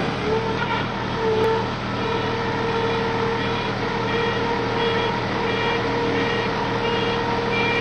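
Machine engine and hydraulics running steadily under load with a held whine while a Jewell hydraulic rotating brush grapple turns and works its jaws.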